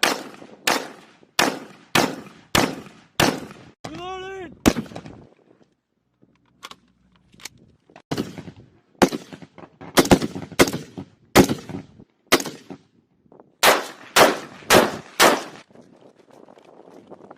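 Rifle fire on a shooting range: strings of single shots about half a second apart, with short pauses between strings.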